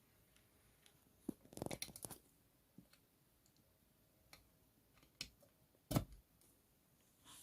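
Faint, scattered clicks and knocks of a USB-C multiport adapter and its cables being handled and plugged in. There is a quick cluster of clicks about two seconds in, and the loudest knock comes about six seconds in.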